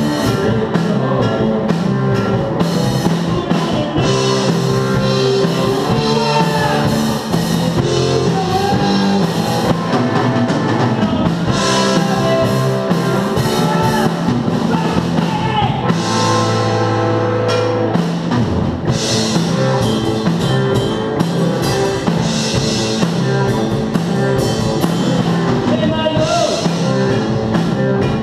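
Live rock band playing: electric bass, electric guitar and drum kit keeping a steady beat, with a sung vocal line. A low bass note is held for about two seconds roughly two-thirds of the way through.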